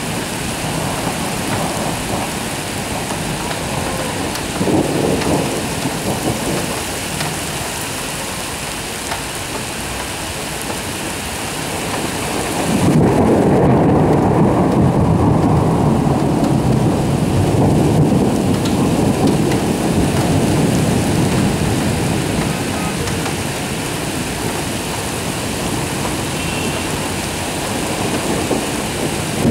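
Heavy thunderstorm: steady hiss of hard rain, with a long, loud roll of thunder starting about halfway through and rumbling on for many seconds. Another rumble builds near the end.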